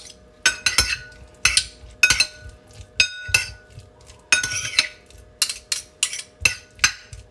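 Metal spoon and fork tossing a mayonnaise-coated potato salad in a stoneware bowl: irregular scrapes and knocks of metal on ceramic, about two a second, with one clear ringing clink about three seconds in.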